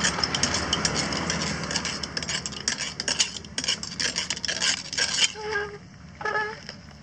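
Hand-cranked traditional popcorn machine, a cast-iron pressure vessel turned over a gas burner: a fast, continuous rattle of kernels tumbling inside as the crank turns, over a steady low rumble. The rattle thins out a little past five seconds in, and two short squeals follow.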